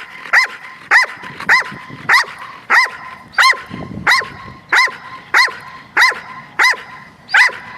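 A dog barking steadily in a regular string of about a dozen short, sharp barks, a little under two a second. This is frustration barking in bark-on-command training, with the dog's ball held back from him.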